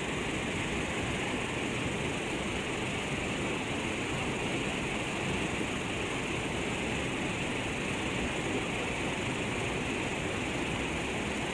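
River water pouring over a low dam's spillway, a steady rush without a break.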